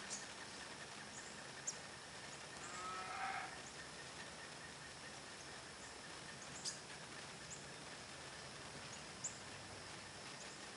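Faint rural ambience: a steady high insect drone, a few sharp, very short high bird chips, and one brief animal call about three seconds in.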